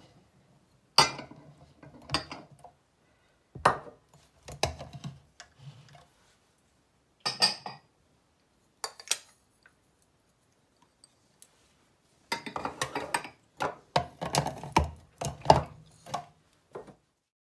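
Kitchen utensils being handled: a stainless steel spice grinder bowl, a wooden spoon and a glass measuring jug knocking and clinking. There are separate clinks and knocks through the first half, then a busier run of clattering over the last few seconds.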